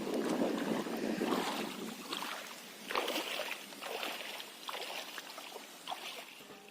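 Small waves lapping and splashing in short, irregular surges, stirred up by strong wind on a lake.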